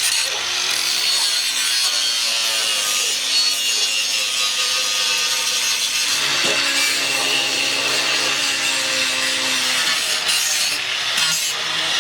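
A power saw cutting steadily, with its motor tone running underneath the cutting noise.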